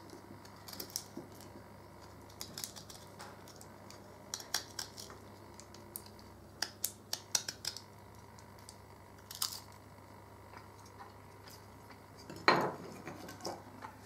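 D2 steel blade of an LT Wright Patriot fixed-blade knife shaving curls off a wooden stick: short, sharp scraping cuts at irregular intervals, with one louder stroke near the end.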